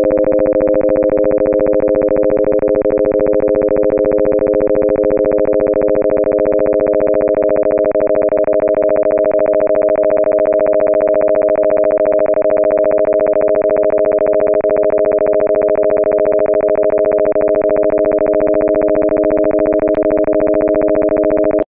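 Steady computer-synthesised tone made of four sine waves at 300, 400, 500 and 600 Hz added together, with the 600 Hz component the strongest. Its timbre shifts as the amplitudes of the individual harmonics are turned up.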